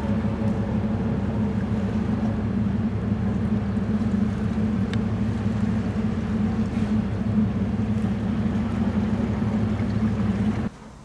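Steady low drone of the cruise ship Azamara Journey's machinery heard on the open deck. It cuts off suddenly near the end.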